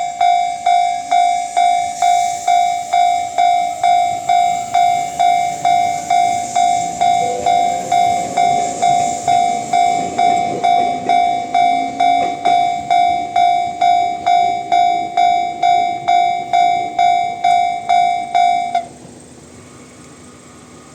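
Japanese level-crossing alarm in the JR standard electronic warning tone, loud from a speaker directly overhead, pulsing about twice a second. Faint rising and falling tones from a passing train run beneath it in the middle. The alarm cuts off suddenly about 19 seconds in, leaving a low steady hum.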